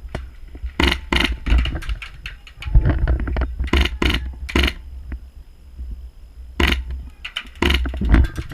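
Semi-auto shots from a Polarstar HPA airsoft rifle: about seven short, sharp cracks, two close together about a second in, three around four seconds in, and single shots near the end, over a low rumble.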